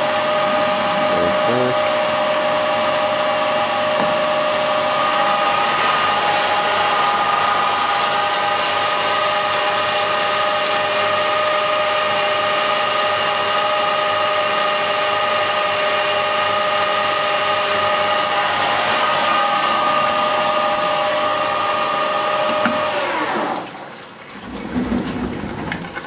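Harrison CNC lathe turning stainless steel with flood coolant spraying on the part: a steady whine from the spindle drive over the hiss of the coolant. About 23 seconds in the run stops and the whine falls away.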